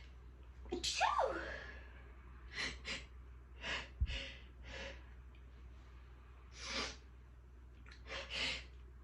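A person's sneeze about a second in, with a falling squeak in the voice, followed by a run of short sharp breaths and sniffs, part of a sneezing fit. A soft bump sounds near the middle.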